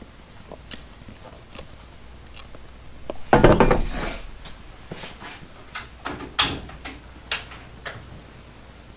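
Handling noise: a louder scrape or rustle about three seconds in, then a few sharp clicks and knocks.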